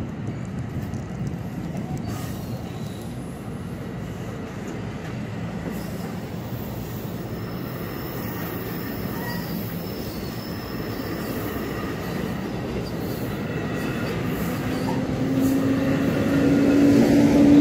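NJ Transit bilevel passenger coaches rolling past at a level crossing: steady wheel-on-rail rumble with faint wheel squeal. Near the end the sound grows louder and a steady low hum sets in as the Bombardier ALP46A electric locomotive at the rear of the train approaches.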